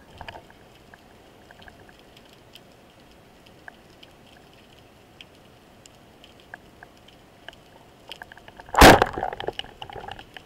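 Band-powered speargun fired underwater about nine seconds in: one loud, sharp crack as the rubber bands release the shaft, followed by a second or so of rattling and clicking. Before the shot, only faint scattered underwater clicks.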